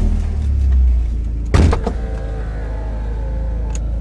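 Mazda MX-5's four-cylinder engine idling steadily just after starting, with a single knock about one and a half seconds in and a faint whine that slowly falls in pitch.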